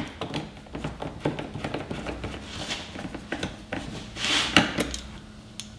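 Scattered small clicks and ticks of a hand screwdriver turning a small screw in lightly on a Corvette C7's fender vent trim, with a brief scraping rustle about four seconds in.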